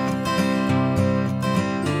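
Background music led by acoustic guitar, with plucked notes coming about three times a second.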